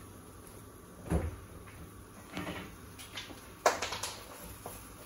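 Kitchen handling sounds: a dull knock about a second in, a softer knock near the middle, then a sharp clatter of several quick clicks, the loudest moment.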